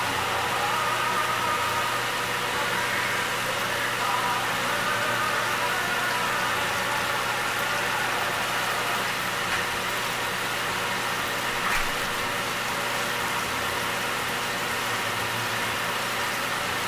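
Kitchen fan running steadily: an even hum with a constant hiss.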